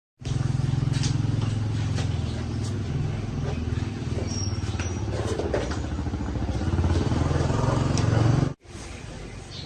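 Motorcycle engine running, its low pitch wavering up and down with the throttle. Near the end the sound breaks off suddenly and goes on at a much lower level.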